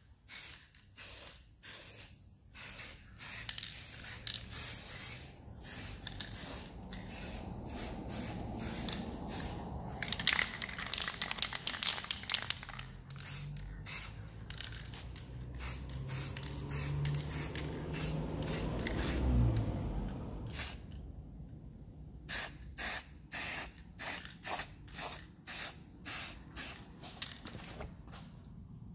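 Aerosol spray-paint can hissing in many short bursts, with a longer continuous spray near the middle and a brief pause about two-thirds through, then quick regular puffs about two a second.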